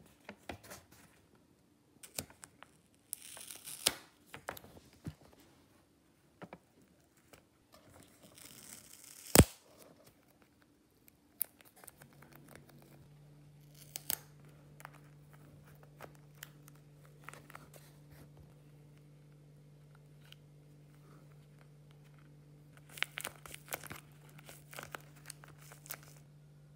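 Paper being handled: paper doll clothes slid out of a paper pocket and fitted onto a paper doll, with rustling, crinkling and sliding of paper and scattered light taps. A sharp click about nine seconds in is the loudest sound, and a low steady hum comes in about halfway through.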